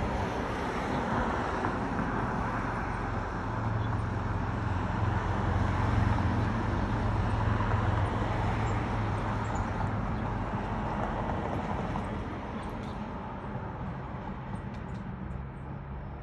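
A car driving past on the street, its road noise and low engine hum swelling to a peak in the middle and then fading away.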